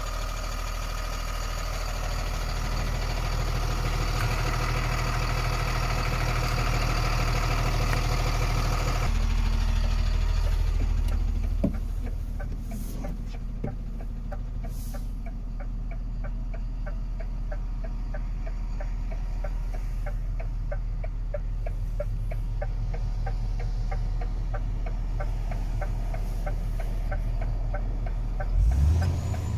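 DAF CF 65.300's six-cylinder diesel engine idling, heard openly at first and then muffled from inside the cab from about nine seconds in. Inside the cab the hazard-light relay ticks steadily, about three clicks a second. Near the end the engine revs up.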